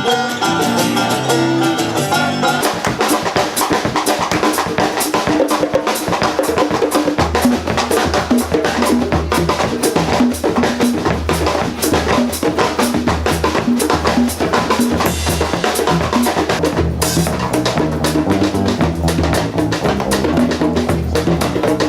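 Band music driven by a drum kit, with kick drum and snare keeping a steady beat; a deep bass line comes in about seven seconds in.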